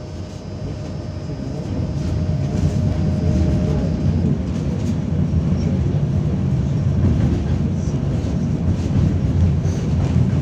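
Tatra T6A5 tram running along the rails, heard from inside the passenger car: a low rumble of wheels and running gear that grows louder over the first two seconds and then holds steady, with a faint steady whine that fades out about halfway.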